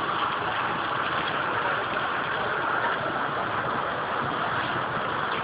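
Steady rushing noise inside a car with the engine idling.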